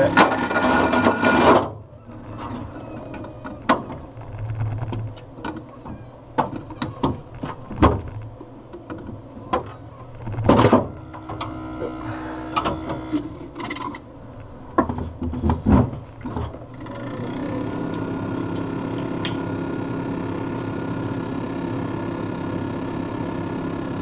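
GE refrigerator evaporator fan motor running with a loud buzz, which cuts out about two seconds in; then scattered plastic clicks and knocks as the fan blades are adjusted by hand on the motor shaft. About 17 seconds in the fan motor starts again with a steady buzzing hum, noisier than it should be: the owner takes it for a failing fan motor that needs replacing.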